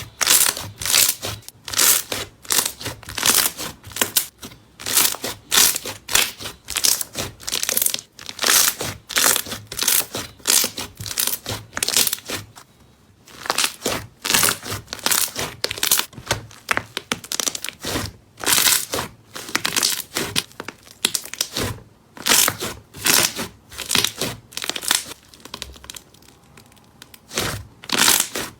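Slime being squeezed and pressed by hand, giving a long run of crackling, crinkly pops a few times a second, with a short lull about halfway through.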